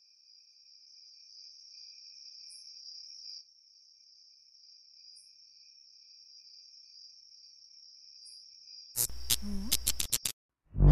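Steady chirring of crickets, a night ambience, with three brief higher chirps spaced a few seconds apart. About nine seconds in, a quick run of sharp, loud clicks with a low rumble breaks in for about a second, then cuts off.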